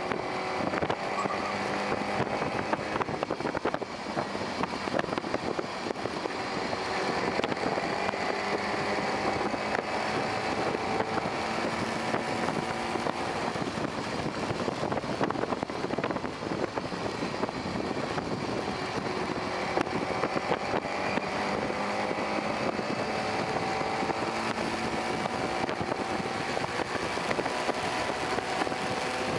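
Lightning electric car's drive motor whining on the race track, its pitch climbing slowly twice as the car gathers speed, over steady wind and road noise in the open cockpit.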